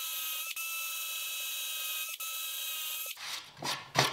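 Cordless drill running steadily with a countersink bit cutting into a scrap wood board, a high whine with two brief dips. It stops about three seconds in, followed by a few short knocks.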